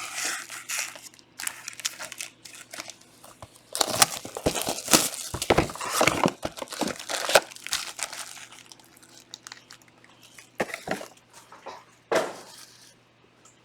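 Plastic wrapping on trading card boxes being torn and crumpled by hand: irregular crinkling and tearing, heaviest in the middle and thinning out toward the end, over a faint steady hum.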